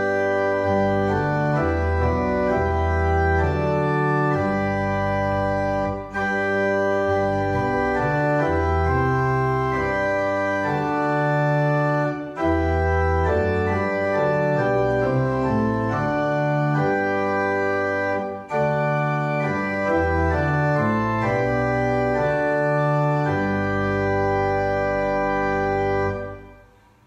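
Pipe organ playing the service prelude in slow, held chords, phrase by phrase with three short breaks between phrases. The last chord fades away near the end.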